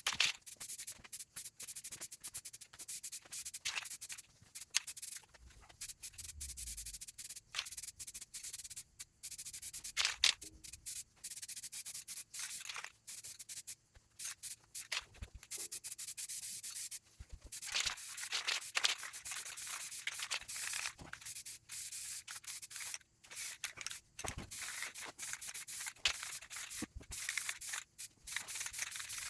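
Aerosol spray can of primer hissing in many short bursts, stopping and starting again every second or so.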